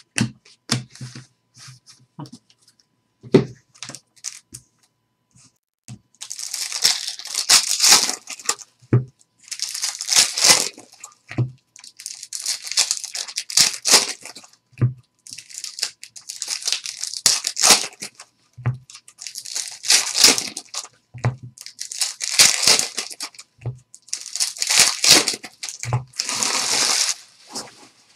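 Foil trading-card pack wrappers crinkling and tearing in a run of short crackling bursts, roughly one every two seconds from about six seconds in, with soft thumps between them as cards or packs are set down on the table. The first few seconds hold only light clicks of cards being handled.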